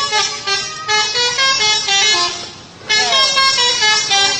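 Indonesian bus 'telolet' musical horn playing a quick tune of short pitched notes stepping up and down; it breaks off a little past two seconds in and starts again about half a second later.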